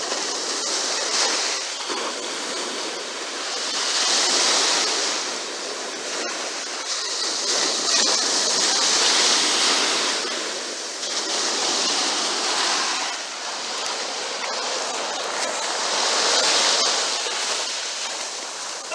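Ocean surf: small waves breaking and foam washing up over the sand, the rush swelling and easing roughly every four seconds.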